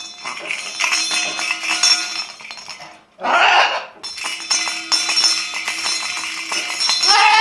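A hand-held dinner bell shaken fast, ringing and jangling almost without a break. It stops just before three seconds in, when the blue-and-gold macaw lets out a short loud squawk, then rings on to the end.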